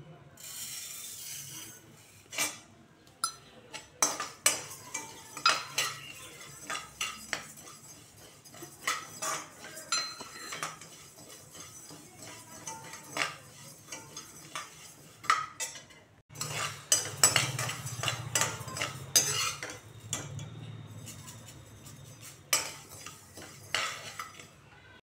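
Cumin seeds poured from a steel measuring cup into a dry kadai with a brief rattling hiss, then dry-roasted by stirring with a metal spatula that scrapes and clinks against the pan in irregular strokes. The scraping gets busier past the middle.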